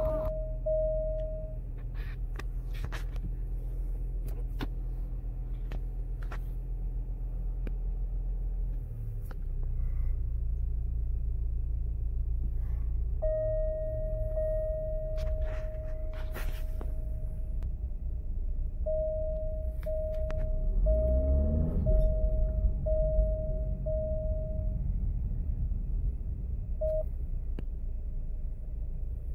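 2018 Alfa Romeo Giulia's engine running at idle, a steady low hum heard from inside the cabin. Over it a warning chime sounds, first as a held tone for a few seconds and then as about six short beeps roughly a second apart.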